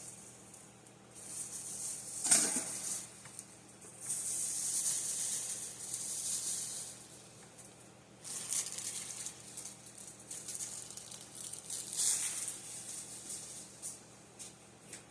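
Packaging rustling and crinkling in several bursts as trash is gathered up, with a short louder crackle about two seconds in.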